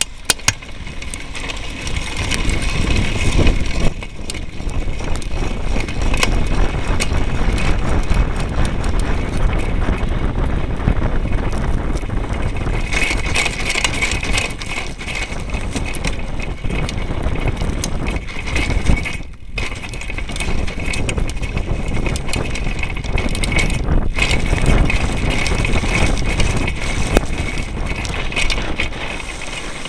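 Downhill mountain bike with a Marzocchi Shiver DC suspension fork being ridden fast over rough ground, heard close to the front wheel: a steady rumbling, rattling noise full of small sharp knocks, with two short lulls about two-thirds of the way through.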